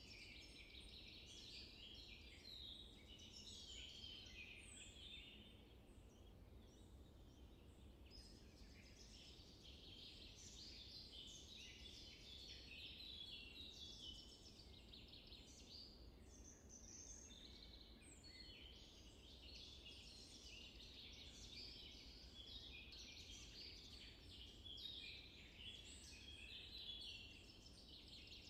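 Faint birdsong: many small birds chirping and twittering in a dense, high-pitched chorus, over faint low background noise.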